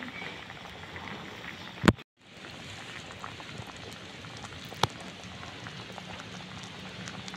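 Yam and pork curry boiling in a pan, a steady crackling bubble with many small pops. A loud sharp click about two seconds in is followed by a brief dropout, and another sharp click comes a few seconds later.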